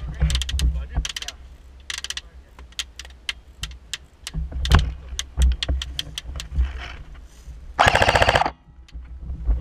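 Airsoft guns firing: scattered sharp clicks of single shots and BB hits, then a short, loud full-auto burst about eight seconds in, over a low rumble.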